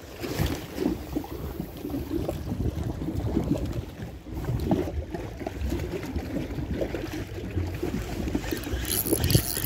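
Small waves lapping and sloshing at the water's edge, an uneven low splashing.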